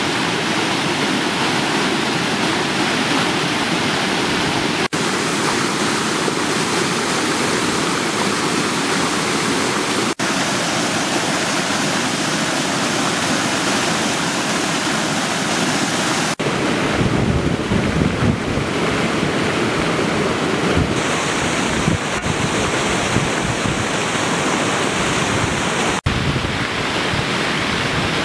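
Muddy floodwater pouring over a small stepped weir: a steady, loud rushing of falling water. From a little past halfway, wind gusts buffet the microphone with an uneven low rumble over the water.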